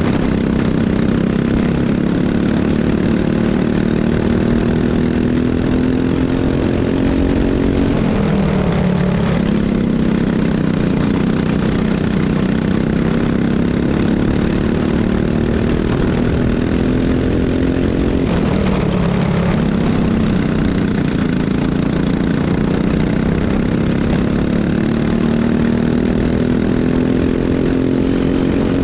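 Racing kart engine running hard through laps, its pitch climbing on the straights. It breaks off briefly about eight and eighteen seconds in, then winds back up.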